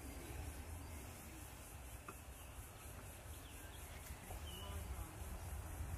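Quiet background of faint, steady, pulsing insect chirring over a low rumble, with a few soft clicks as torn croissant pieces drop into a glass baking dish.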